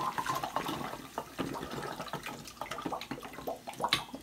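Vinegar pouring through a plastic funnel into a glass bottle of baking soda, splashing and fizzing with many small crackles as the bottle fills with foam.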